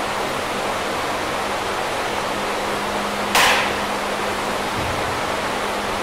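Barbell loaded with bumper plates being lifted from the floor to overhead: one sharp clack of the bar about three seconds in and a dull low thump near five seconds. Behind it runs a steady rushing noise with a low hum.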